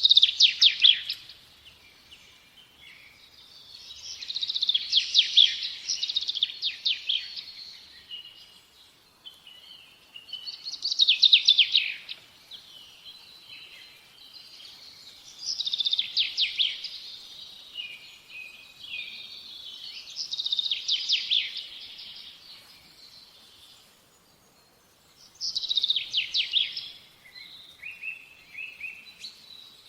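Songbird singing: a loud phrase of fast trilled notes about every four to five seconds, with softer chirps in between.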